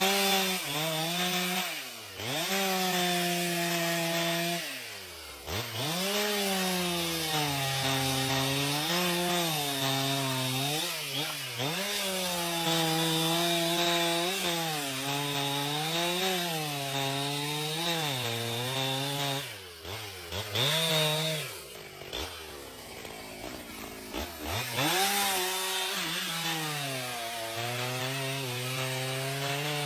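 Two-stroke chainsaw cutting wood. Its engine pitch sags and recovers over and over as the chain bites, and several times it drops steeply toward idle before revving back up.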